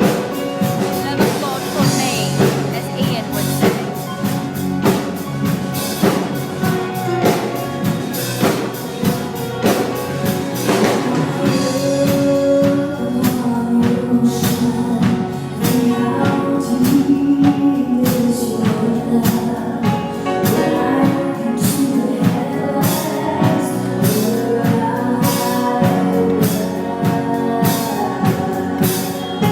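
A live band playing, with piano and a drum kit keeping a steady beat, and voices singing over it, most clearly from about halfway through.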